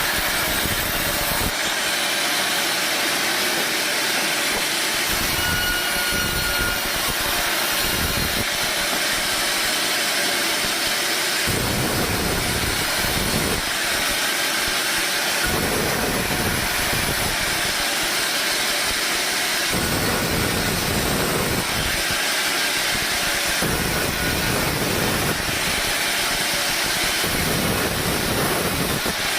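Sawmill machinery running steadily with a loud, high hissing whine throughout. A deeper rumble comes in and drops out again about every two to four seconds.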